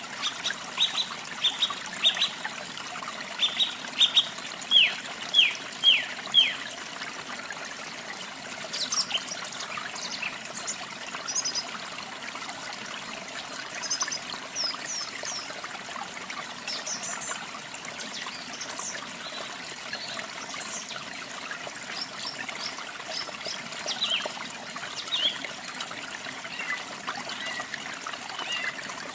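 Running water trickling steadily, with small songbirds chirping over it: a run of quick, falling chirps in the first several seconds, then scattered higher chirps.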